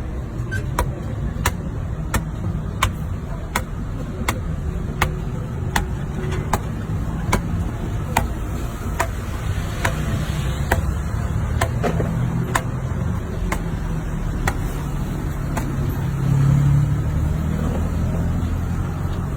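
Steady low rumble of street traffic, with a sharp click repeating evenly about every three-quarters of a second over it.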